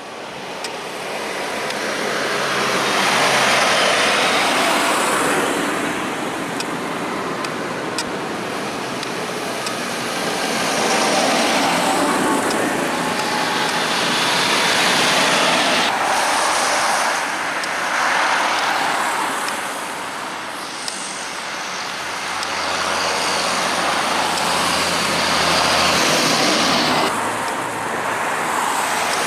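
A procession of large farm tractors, John Deeres among them, with cars, driving past one after another; engine and tyre noise swells and fades with each pass. A deep engine drone stands out about three-quarters of the way through.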